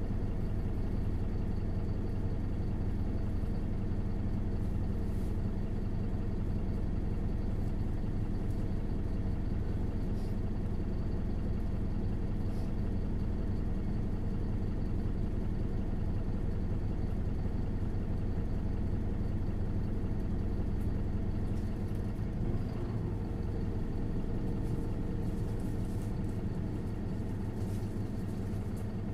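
Isuzu Erga LV290N1 city bus's four-cylinder diesel engine running steadily while the bus is under way, heard from on board.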